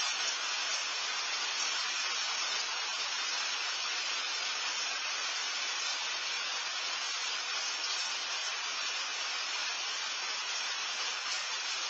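Steady rain falling, heard as a constant even hiss.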